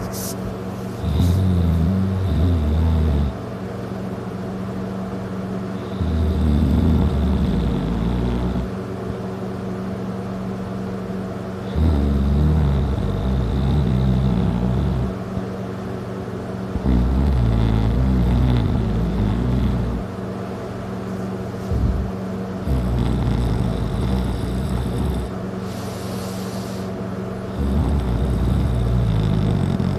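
A man passed out drunk on his back, snoring loudly: six low rattling snores, each lasting two to three seconds, about every five seconds, over a steady background hum.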